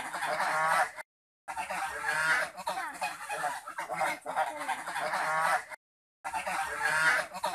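Domestic geese honking and cackling in repeated calls. The sound cuts out completely twice, briefly.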